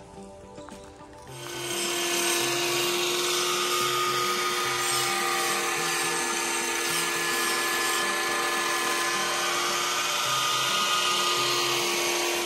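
A power tool starts about a second in and runs steadily with a loud hiss and one steady hum, then stops near the end, over background music.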